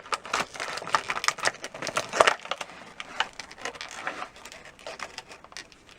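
Plastic toy packaging being handled and pried open by hand: irregular clicks, crackles and snaps of stiff plastic, thickest in the first couple of seconds and sparser after.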